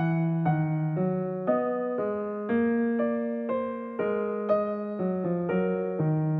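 Background music: a gentle keyboard piece with notes and chords changing about twice a second.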